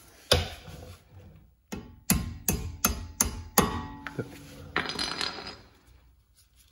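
A hammer tapping a brake caliper's lower pad retaining pin into place: one tap, then a quick run of six metallic taps with a brief ring. A short scraping sound follows.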